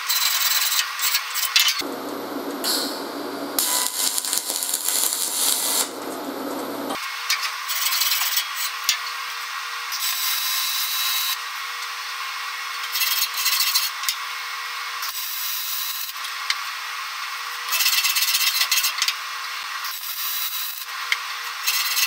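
Wire brush scrubbing aluminum MIG weld beads in quick back-and-forth strokes, a fast, uneven scratching. From about two seconds in, a steadier, deeper noise runs for some five seconds.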